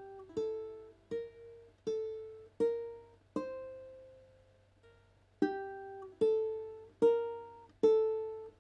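Ukulele played slowly, one plucked note at a time, working through the F major scale in open position in groups of three notes. The notes fall about every three-quarters of a second, with one note held about twice as long in the middle.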